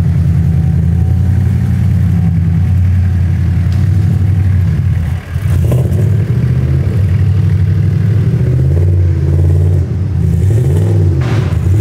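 Twin-turbo 5.0-litre V8 of a roughly 1,000-wheel-horsepower Mustang idling just after a cold start on E85, while the fuel warms up. The idle dips briefly about five seconds in, and near the end the engine speed rises and falls several times.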